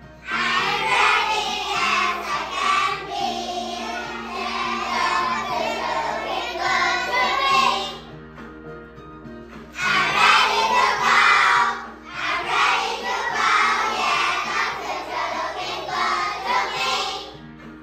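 A group of young children singing an English graduation song together over musical accompaniment. The singing pauses briefly about eight seconds in and again near the end.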